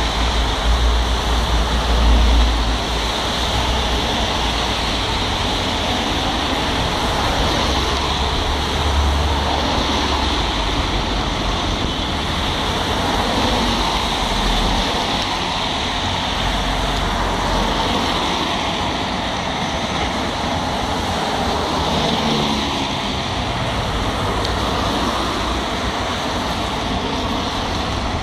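Steady roar of street traffic and a tracked demolition excavator working, with wind buffeting the microphone in low gusts near the start and again about nine seconds in.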